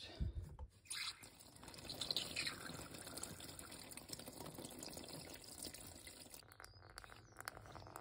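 Heating-system water running out of a loosened thermostatic radiator valve union and splashing into a folding plastic bucket. The stream eases off towards the end, definitely slowing down: the vacuum from bunging the feed-and-expansion tank of the gravity open-vent system is holding the water back.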